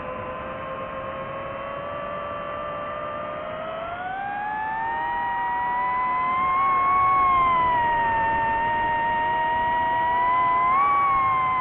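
Drone propellers and motors whining, several tones rising and falling together with throttle: the pitch climbs about four seconds in, eases off, and swells briefly near the end.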